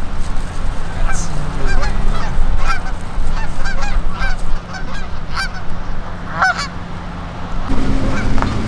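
Canada geese honking: a run of short, repeated honks from several birds, over a steady low rumble.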